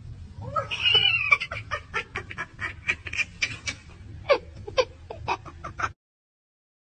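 A small animal's calls: one longer cry about a second in, then a rapid series of short, sharp calls, about three to four a second, some falling in pitch, cutting off abruptly near the end.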